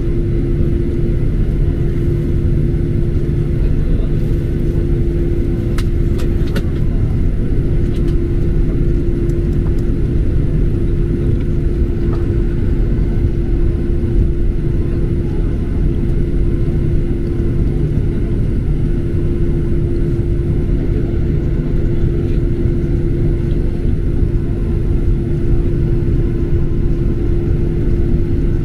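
Cabin noise of a Boeing 737-800 taxiing with its CFM56-7B turbofans at low power, heard from a seat over the wing: a steady rumble with a constant hum.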